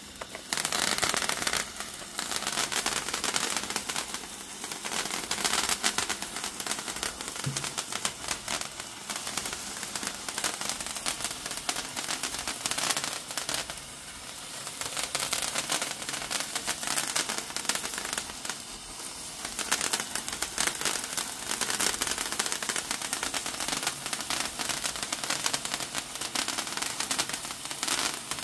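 Handheld ice sparkler burning: a continuous spray of sparks, hissing with dense crackling.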